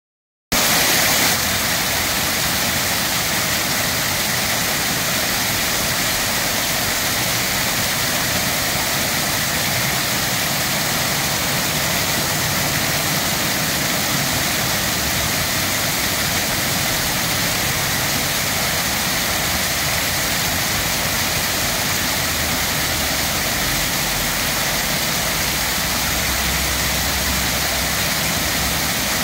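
Water from a stone-wall waterfall fountain pouring over the ledges and splashing into its basin, a steady, even rush. A low rumble of a passing vehicle joins it near the end.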